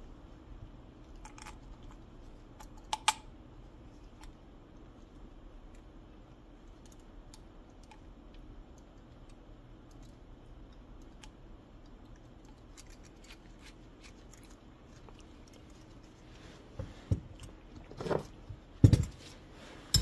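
Faint clicks of a Tecumseh carburetor and cast-iron intake manifold being handled and fitted together, over a low steady hum. Near the end, several louder metal clunks as the assembly is knocked about and set down on the workbench.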